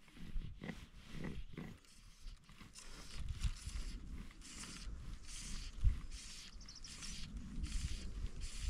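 Fly line being stripped in by hand through the fly rod's guides: a dry, repeated rasping hiss about every half second, with a few low bumps on the microphone.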